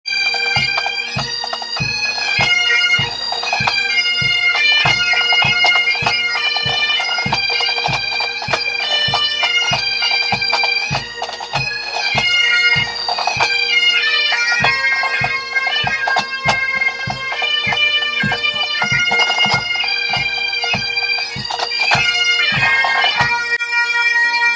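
Pipe band playing: Great Highland bagpipes skirling a tune over their steady drones, with a bass drum beating about twice a second and snare drums. The bass drum drops out briefly about halfway through.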